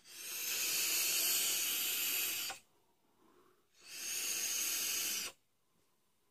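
A long hissing direct-lung drag of about two seconds through a Council of Vapor Vengeance sub-ohm tank on a hybrid mechanical mod, air rushing through its airflow holes past the firing coil. After a short pause comes a second, shorter hiss of breath as the vapour cloud is blown out.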